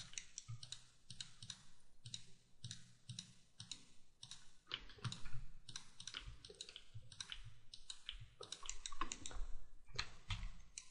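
Faint computer mouse clicks and keyboard key presses, sharp and irregular, a few per second, made while selecting and deleting polygons in 3D modelling software.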